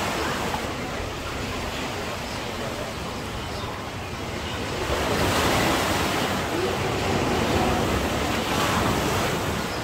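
Sea surf breaking and washing up on a beach, a steady rushing that swells louder about halfway through as a wave comes in.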